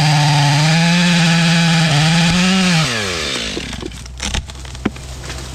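Chainsaw running at full throttle in wood for about three seconds, then the throttle is released and the revs fall away. A few sharp cracks and knocks follow.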